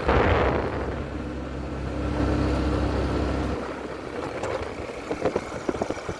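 150 cc motorcycle engine running steadily as the bike rides over a dirt road, with a gust of wind hitting the microphone first. About three and a half seconds in the engine sound drops away, and scattered knocks follow.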